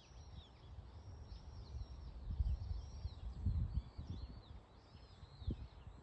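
A crowd of small birds chirping continuously, many short high calls overlapping, with irregular low thumps of footsteps on a path.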